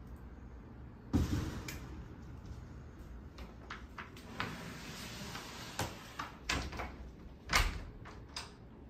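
A door shutting with a thump about a second in, followed by scattered knocks and clicks and a second loud thump near the end.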